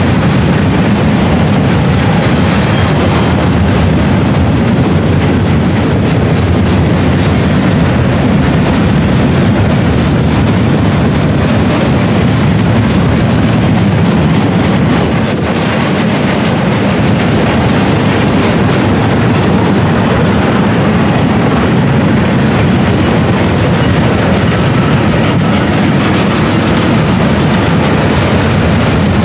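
Freight train of steel gondola cars rolling past: a loud, steady rumble of wheels on rail, with a constant run of clicks as the wheels pass over rail joints.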